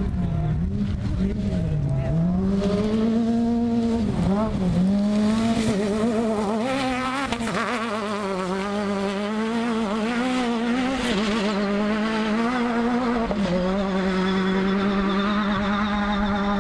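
Off-road rally buggy engine revving hard, its pitch dropping and climbing again several times as the driver lifts off and shifts. Near the end it holds a steady high rev.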